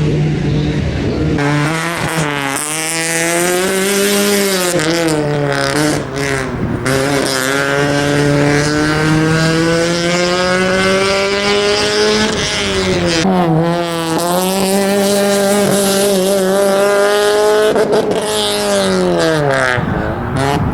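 Honda Civic's four-cylinder engine driven hard through a slalom course, its pitch climbing under acceleration and then dropping sharply several times as the driver lifts off or shifts.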